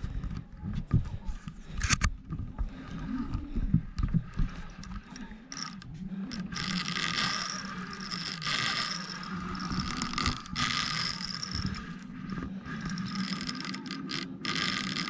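Baitcasting reel working under load while a hooked fish is played, its gears making a whirring, ratcheting sound in repeated bursts from about six seconds in. In the first few seconds there are knocks and handling bumps against the rod-mounted camera.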